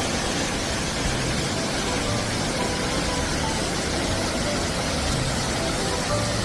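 Steady rushing hiss of a narrow waterfall pouring down a rock cleft, even and unbroken.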